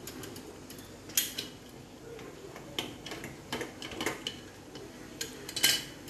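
Scattered light metal clinks and taps from an aluminium steamer and its perforated tray as dumplings are set in it from a metal plate, with a louder clink about a second in and another near the end.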